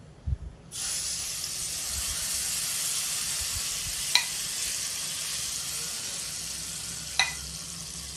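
Hot tadka of oil, dals, mustard seeds, fenugreek, red chilli, curry leaves and cumin poured into wet guava chutney, sizzling from about a second in and slowly dying down. Two sharp clicks come about three seconds apart.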